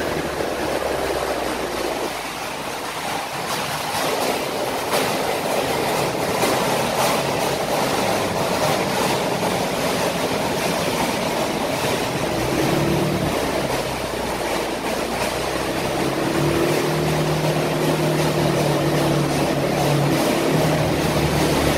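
Motor scooter being ridden at steady speed, its engine hum under a constant rush of wind and road noise. The engine tone comes through more clearly in the second half.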